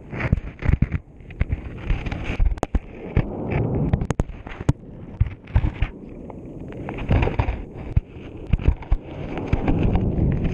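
GoPro camera housing tumbling underwater along the sea bed in surging waves: a muffled rumble that swells and ebbs, cut by frequent sharp clicks and knocks as the housing scrapes and bumps over the bottom.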